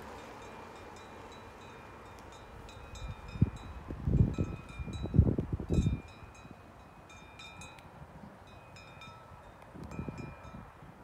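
Swiss cowbells on grazing cows clanking irregularly, a scatter of ringing strikes. Loud low buffeting on the microphone between about three and six seconds in, and briefly again near the end, is louder than the bells.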